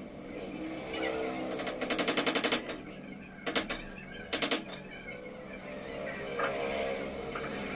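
Pneumatic impact wrench hammering in short bursts: one rattling run of about ten blows a second lasting about a second, then two brief bursts a second or so apart.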